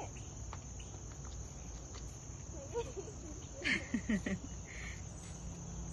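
Steady high-pitched drone of insects, crickets or cicadas, with a few brief faint voice-like sounds a little past halfway.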